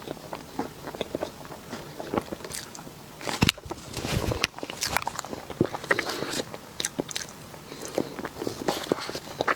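Close-miked biting and chewing of a dessert: irregular small clicks and mouth sounds, with one loud, sharp bite about three and a half seconds in.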